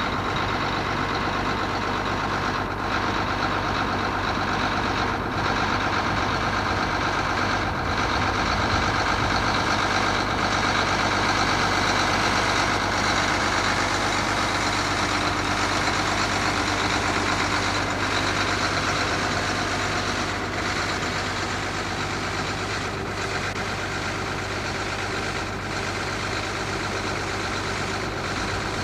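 A motor vehicle's engine running with a steady drone and a constant low hum, heard while moving along the track.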